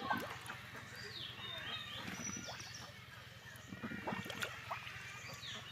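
Outdoor ambience with birds calling in short, high chirps that slide in pitch, repeated several times, over scattered clicks and a low steady hum.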